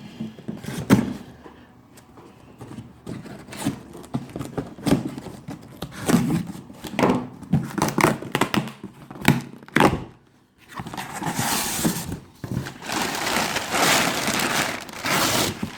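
A cardboard box being opened by hand: a run of knocks and thumps as the box and its flaps are handled, then, from about eleven seconds in, a long stretch of crinkling and tearing of the packing.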